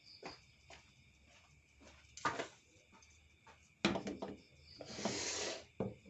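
Workshop handling noises: scattered knocks and clacks, a cluster of them about four seconds in, and a short hissing scrape lasting about half a second near the end. Crickets chirp steadily in the background.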